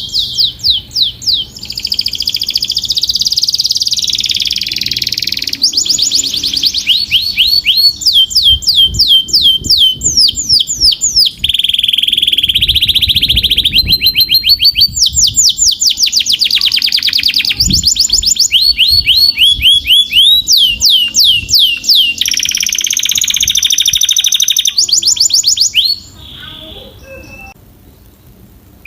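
Canary singing: fast runs of repeated sweeping notes, many a second, alternating with buzzing rolls held at one pitch. The song breaks off about three seconds before the end, leaving only a few faint notes.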